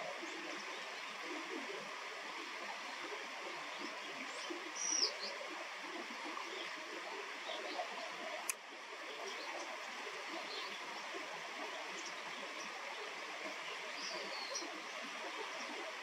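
Steady rush of flowing river water, with a short, high, falling bird call about a third of the way in and another near the end. A single sharp click comes about halfway through.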